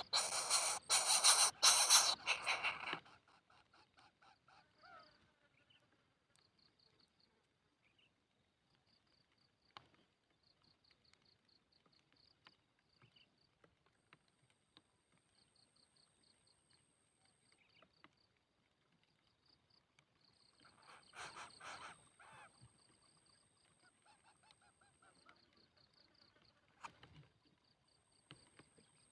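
Harsh, rasping begging calls of coucal chicks, loud for about the first three seconds and again more weakly about two-thirds of the way in. Between them come faint, high, rapid chirping pulses and a thin, steady high tone.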